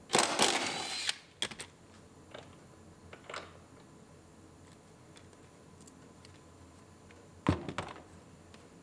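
A small cordless power tool runs for about a second, backing out a rear-seat bolt, followed by a few light clicks and knocks as the bolt and tool are handled. Two more sharp knocks come near the end.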